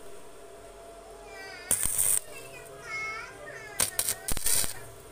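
Electric arc welder tack-welding a thin spray-paint-can muffler to a small engine's exhaust pipe: three short bursts of arc crackle, the first about two seconds in and two more close together near four seconds.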